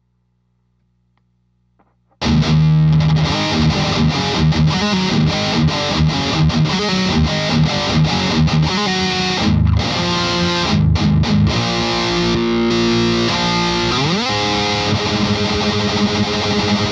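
Distorted electric guitar played through an overdrive pedal, part of a back-to-back pedal comparison. About two seconds of silence come first, then riffing with held chords and short choppy strokes, and a note slides up in pitch near the end.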